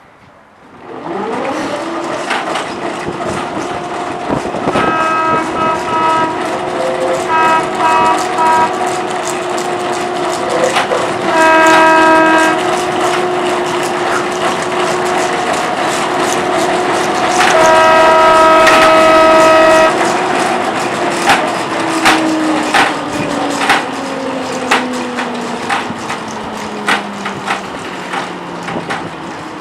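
Snow-clearing tram's electric motor winding up about a second in, running steadily with much clattering and clicking, then winding down over the last several seconds. A horn sounds four times, the last blast the longest.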